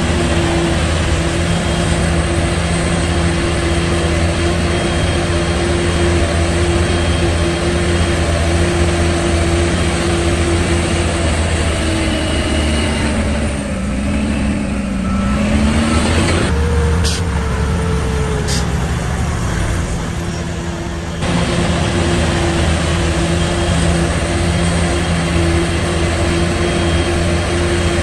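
Heavy diesel engine of earthmoving machinery running steadily under load, with a brief rise in pitch a little past the middle and an abrupt change in the engine sound about three quarters of the way in.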